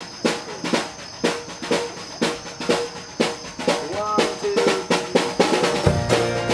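A live drum kit plays a steady kick-and-snare beat, about two hits a second, opening a band's song. Guitar notes, some bent in pitch, join about three and a half seconds in, and the full band comes in with a heavier low end near the end.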